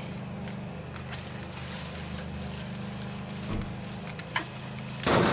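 A steady low machine hum, with scattered light clicks and a short rustle near the end as jujubes are picked off the tree with a picking tool.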